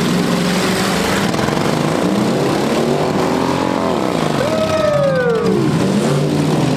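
Several demolition derby pickup trucks' engines revving up and down over one another as they ram and push. About four and a half seconds in, one engine climbs sharply in pitch and falls back.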